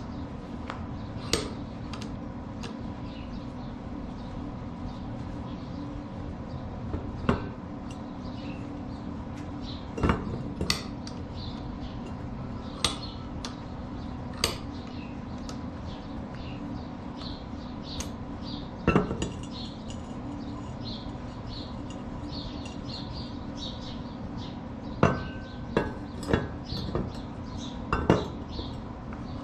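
Steel pieces clinking and clanking as they are handled and set in a small bench vise, scattered knocks with a cluster of louder ones near the end, over a steady low hum.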